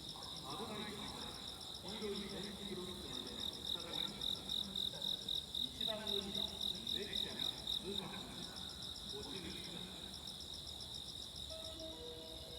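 Insects, likely crickets, chirping in a steady high trill that pulses about four times a second in the middle. Faint distant voices sit underneath, and a few steady tones begin near the end.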